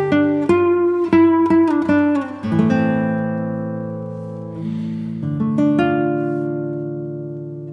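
Background music on acoustic guitar: quick plucked notes, then strummed chords left to ring out and fade.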